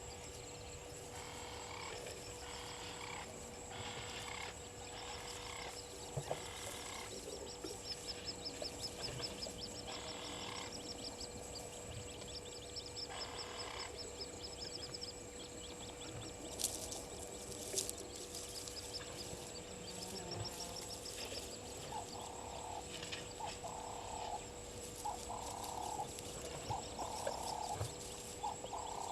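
Wildlife calling at a waterhole: assorted bird calls throughout. From about two-thirds of the way through, a low croaking call repeats about once a second, typical of frogs. A faint steady hum and a high steady whine run underneath.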